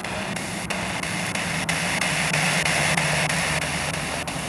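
Spirit box sweeping through radio stations: a steady hiss of static broken by short clicks as it jumps from channel to channel.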